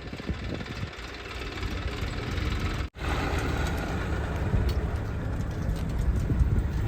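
Diesel engine of a JCB 3DX backhoe loader running steadily with a low rumble. The sound cuts out for an instant a little before halfway, then carries on slightly louder.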